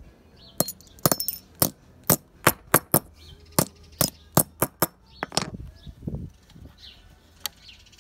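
A hammer striking small metal L brackets lying on concrete block paving to straighten them: about a dozen sharp blows in quick, uneven succession over the first five seconds, then a few lighter taps and one last tap near the end.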